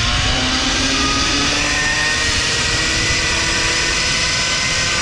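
Zipline trolley's pulleys whining along the steel cable, the whine slowly rising in pitch as it picks up speed, with rushing wind buffeting the microphone.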